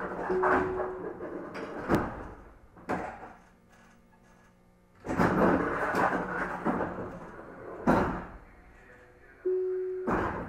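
Sliding doors of a Tobu 50050-series commuter train thudding and clattering while the train stands still, several times over, with two sharp thumps and two short steady tones.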